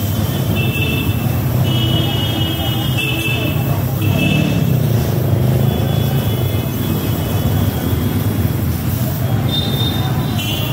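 Gas welding torch flame burning steadily as it welds the seam on a car shock absorber's steel top, a continuous rushing noise, with short high tones coming and going over it.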